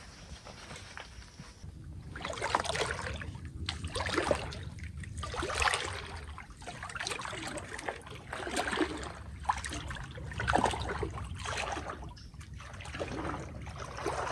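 Legs wading through knee-deep swamp water: a sloshing splash with each stride, about one every second and a half, starting about two seconds in.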